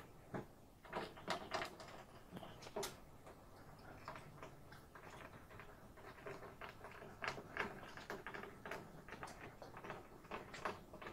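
Faint, irregular clicks and small knocks of a rubber weatherstrip gasket being pressed by hand onto the sheet-metal pinch-weld flange of a truck cab's rear window opening.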